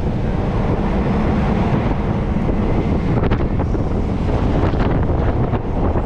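Wind buffeting the microphone of a moving vehicle, a steady low rumble with road noise.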